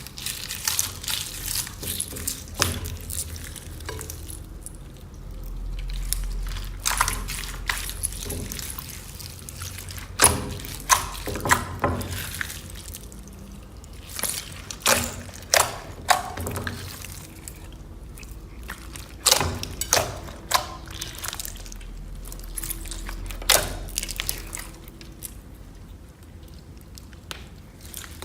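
Slime being squished and stretched by hand, making irregular wet clicks and pops.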